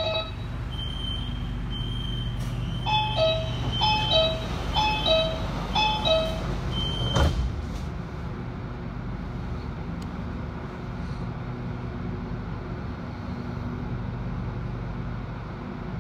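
A metro train's electronic door-closing warning: a series of falling two-note beeps, about five pairs, then a thud about seven seconds in as the doors shut. After that comes the steady hum of the electric train.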